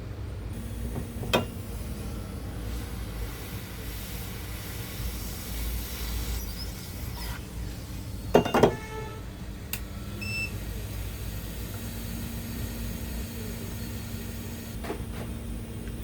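Steady low background hum, with a sharp click a little over a second in and a brief clatter of hard knocks about eight seconds in, the sounds of small tools handled on a workbench.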